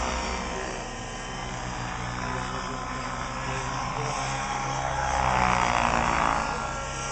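Align radio-controlled helicopters flying 3D aerobatics: the rotors and motors make a steady whine that rises and falls in pitch with the manoeuvres, loudest around five to six seconds in.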